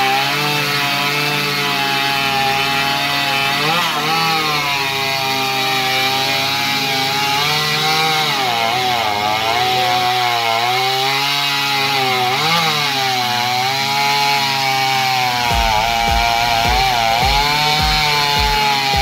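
Jonsered 535 vintage two-stroke chainsaw cutting through a thick log at full throttle, its engine pitch dipping and recovering several times as the chain is pressed into the wood.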